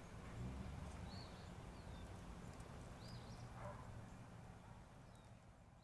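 Faint outdoor ambience: a steady low rumble with a few short bird chirps, fading out near the end.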